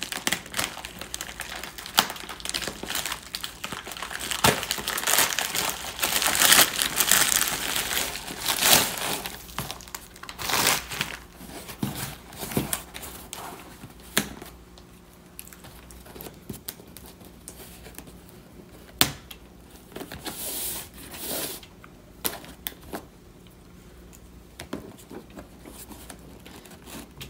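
Plastic mailing bag crinkling and tearing as it is pulled open, in dense rustling bursts. Then a quieter stretch of scattered clicks and scrapes as a cardboard box is handled and its packing tape is cut with scissors.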